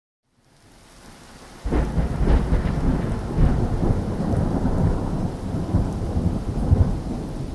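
Thunder with rain. It fades in from silence, breaks into a sudden loud clap about a second and a half in, then rumbles on in uneven surges and eases slightly near the end.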